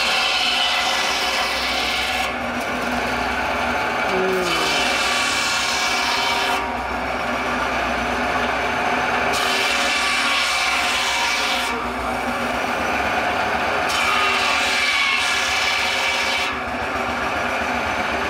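Belt-driven circular saw bench, powered by a stationary steam engine, cross-cutting a log into firewood lengths. The blade bites through the wood four times, each cut lasting about two and a half seconds, one every four to five seconds, and spins free in between.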